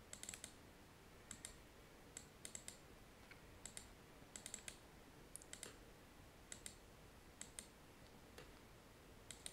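Faint computer mouse clicks, many in quick pairs like double-clicks, about one cluster every second, over a quiet room hush.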